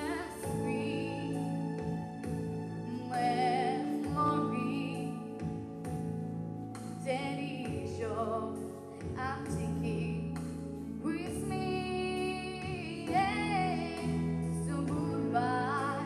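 A girl singing into a handheld microphone over instrumental accompaniment, with vibrato on her held notes.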